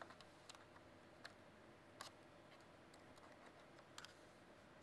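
Faint, scattered plastic clicks as a Sony NEX-FS100 camcorder is handled and the small cover over its memory card slot is opened.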